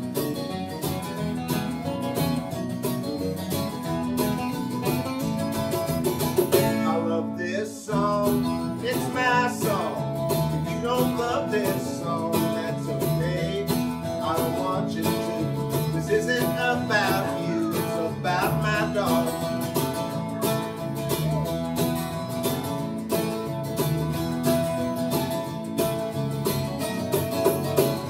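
Country-rock band playing an instrumental break: guitars and bass guitar over a steady drum beat, with a lead guitar line on top. The band drops out briefly about seven seconds in and comes back in.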